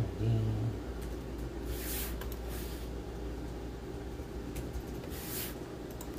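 Steady low background hum, with two short rustling swishes, about two seconds in and again near five seconds.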